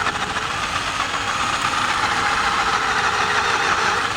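Electric drill running steadily under load, a 1/4-inch cobalt bit cutting through a broken hardened bolt.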